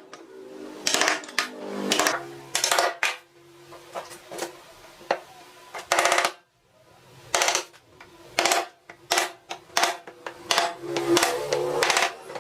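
Irregular sharp knocks and clatters of hard objects, such as wood pieces and hand tools being handled and set down, spread unevenly with a short lull in the middle.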